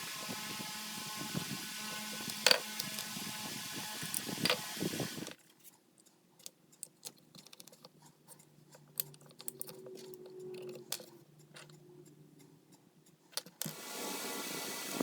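Small clicks and taps of hand work at a workbench, fitting a wooden dowel into a screwdriver handle's hole, over a steady hum. About a third of the way in the hum drops away, leaving a quieter stretch of scattered faint clicks until the hum returns near the end.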